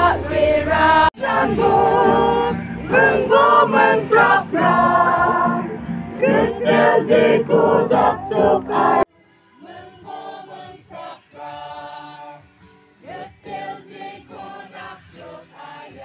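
A mixed group of men's and women's voices singing a gospel song together in chorus. About a second in the sound cuts briefly, and at about nine seconds it cuts abruptly to a much quieter recording of group singing.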